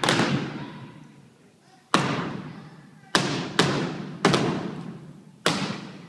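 Step team stepping on a stage: about seven sharp stomps and claps in an uneven rhythm, each ringing on in the hall's echo.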